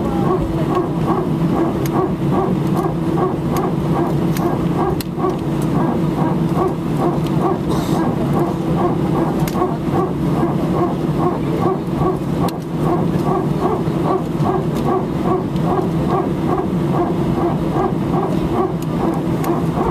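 Airbus A319 hydraulic power transfer unit (PTU) barking: a steady, rapid run of pulses about two or three a second over the steady hum in the cabin. It is the normal sound of the PTU pressurising one hydraulic system from another, as during single-engine taxi.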